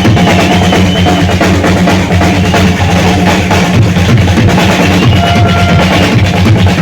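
Rock drum kit in a live drum solo: a dense, unbroken run of fast strokes over heavy bass drum, played loud.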